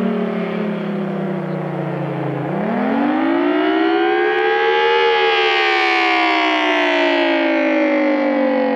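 Federal Signal Thunderbolt 1000T civil defense siren sounding the attack signal as a wail. Its pitch sinks to a low point about two and a half seconds in, rises quickly to a peak at about five seconds, then slides slowly back down.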